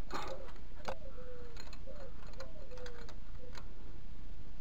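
Gear oil glugging out of the spout of a tipped plastic jerrycan into a cut-bottle funnel. Air gulps back into the can about every half second, each gulp a short, slightly dropping tone, with a few small clicks between.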